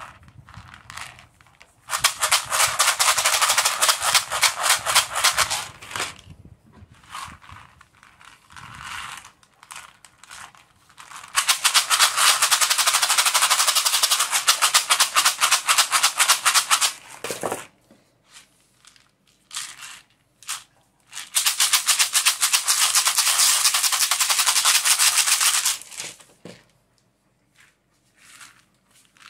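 Rawhide rattle with the hair left on, shaken rapidly in three long runs of several seconds each, with a few short single shakes in between: a dense, even rattle.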